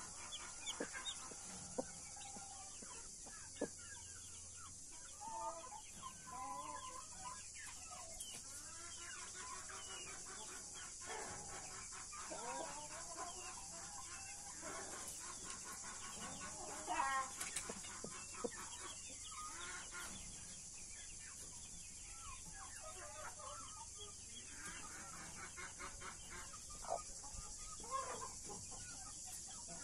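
Blue mother hen clucking softly to her chicks, with the chicks peeping around her, over a steady high hiss.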